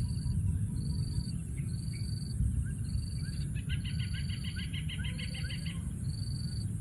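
Outdoor bird and insect calls: a short high chirp repeats about once a second, and a rapid run of chirps comes in for about two seconds midway, all over a steady low rumble.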